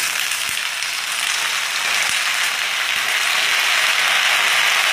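Freshly washed bottle gourd leaves and cut vegetables sizzling in hot mustard oil, a steady frying hiss that grows louder toward the end as the wet greens hit the oil.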